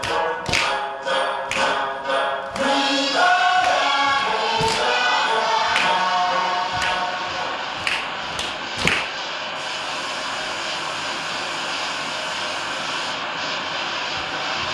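A group of voices singing or chanting together over sharp beats, about two a second at first, then about one a second. From about nine seconds in, the singing gives way to a steady rushing noise.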